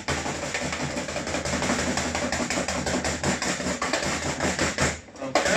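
A wire whisk beating Yorkshire pudding batter in a bowl, fast rattling strokes against the bowl to get it lump free. There is a short pause about five seconds in, under a low steady kitchen hum.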